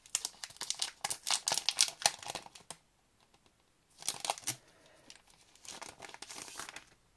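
Clear plastic packaging bag crinkling and rustling as a plastic 3D embossing folder is handled in and out of it. A long bout of crackling for the first few seconds, a short burst about four seconds in, and another bout near the end.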